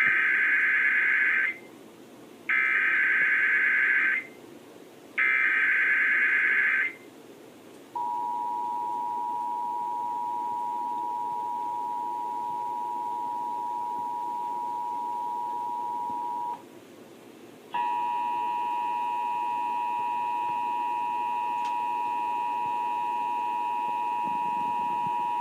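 Emergency Alert System test signal: three short bursts of warbling digital header tones, then the steady two-tone attention signal held for about eight seconds. After a brief gap, a second steady tone with several higher tones mixed in sounds through the end.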